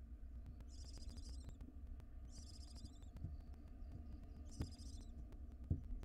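Barn owl nestlings giving raspy, hissing begging calls, three in a row about two seconds apart, over a steady low hum. There is a light knock and then a louder bump near the end, from movement in the wooden nest box.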